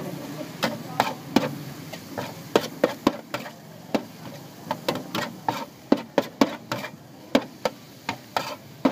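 Metal spatula clacking and scraping against a hot flat griddle while stir-frying noodles and vegetables, in quick, irregular strikes, a couple to a few each second.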